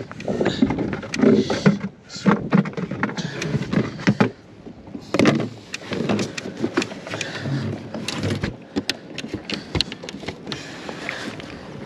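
Irregular knocks, clicks and clatter of things being handled and bumped inside a small fishing boat.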